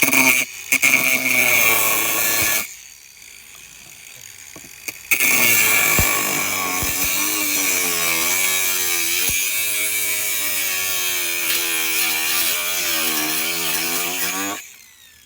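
Electric power saw cutting through soldered copper pipe, in two runs: a short cut ending about two and a half seconds in, a pause, then a longer cut from about five seconds in until shortly before the end, its motor pitch wavering as it loads.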